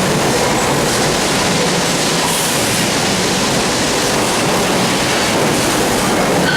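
Loud, steady running noise of a moving vehicle, with faint whining tones held through it: the noise is presented as abnormal.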